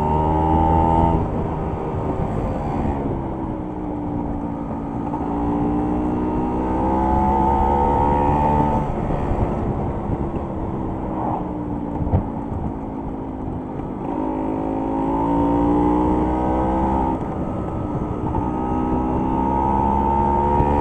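Scooter engine heard from the rider's seat, its pitch rising and falling again and again as the throttle is opened and eased off through the bends, over a low rumble of wind and road. A single sharp knock comes about twelve seconds in.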